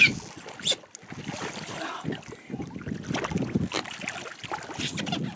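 Wind buffeting the microphone on an open boat: uneven low rumble with scattered sharp knocks, the strongest right at the start.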